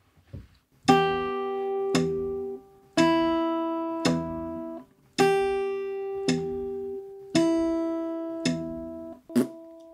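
Acoustic guitar played fingerstyle in a blues pinch pattern: the thumb plucks the palm-muted low E string about once a second at 60 beats per minute. Some beats add a finger on a higher string, pinched together with the thumb, so a higher note rings over the bass before being damped.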